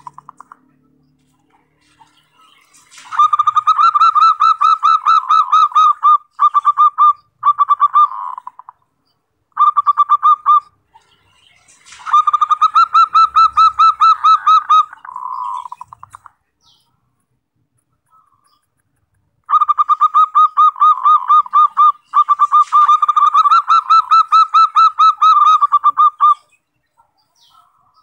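Zebra dove (perkutut) calls used as a lure call for wild doves: long bouts of rapid, pulsed cooing notes, each bout lasting several seconds, with pauses of a few seconds between them.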